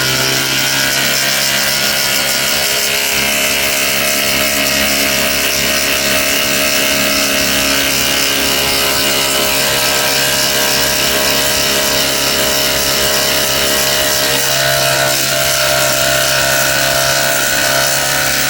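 Five cordless impact drivers, the Flex FX1371A, Makita GDT01Z 40V, Milwaukee 2953-20, Kobalt KXID124B and Dewalt DCF840, hammering at full speed together as they drive fasteners, a loud steady mechanical din.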